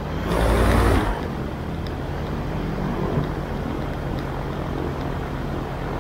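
AutoGyro MTOsport gyroplane's engine and pusher propeller running steadily while taxiing, with a brief loud rush of noise about half a second in.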